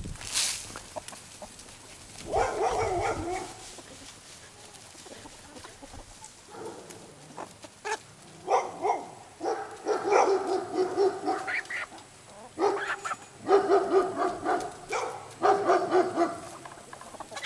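Grain feed tossed onto dry ground in a short rushing burst at the start, then repeated bursts of rapid, pitched animal cries, briefly about two seconds in and almost without pause through the second half.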